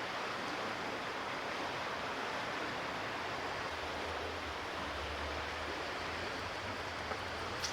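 Shallow creek water running, a steady rushing hiss, with one short click near the end.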